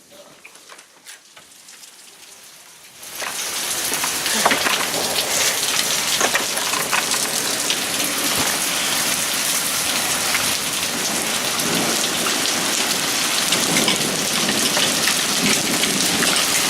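Heavy rain mixed with hail pelting down, a dense hiss full of sharp hits. It starts suddenly about three seconds in after a few faint scattered drops, and cuts off abruptly at the end.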